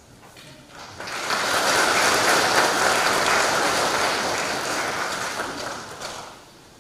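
Congregation applauding: the clapping starts about a second in, holds steady, then dies away near the end.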